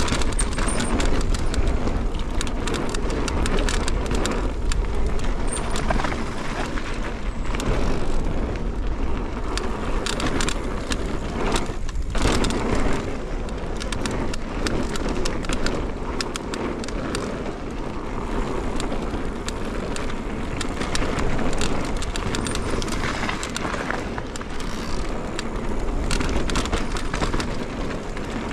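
Mountain bike riding fast down a dirt forest singletrack: a steady rush of tyre and trail noise with frequent rattles and clicks from the bike as it runs over bumps. The noise dips briefly about twelve seconds in.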